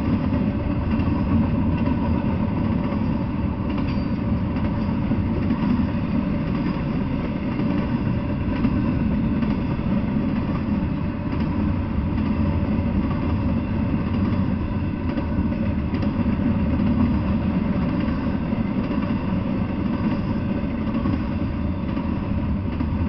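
Double-stack intermodal freight train rolling past: a steady, unbroken rumble of the well cars' wheels on the rails.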